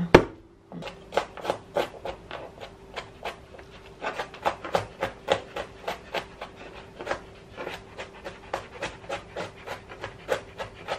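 A stone brought down hard once on garlic cloves on a plastic cutting board, the loudest knock, then a chef's knife coarsely chopping the crushed garlic, its blade knocking on the plastic board in a quick, uneven run of about four strokes a second.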